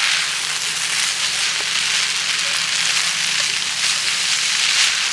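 Meat and vegetables sizzling as they fry, a steady hiss.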